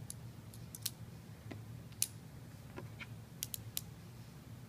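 Small sharp clicks and taps of pen parts being handled and fitted together, about ten in a few seconds, the loudest about one and two seconds in, over a faint low hum.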